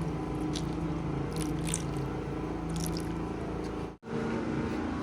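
Steady machine hum with a few short scraping sounds over it.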